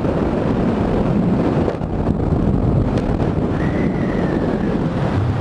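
Heavy wind buffeting on the camera microphone at high speed, over the steady running of a Yamaha Factor 150 motorcycle's single-cylinder engine at full throttle.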